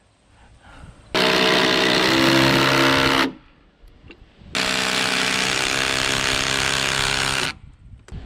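Cordless impact driver hammering screws into the log wall, run in two steady bursts of about two and three seconds with a short pause between.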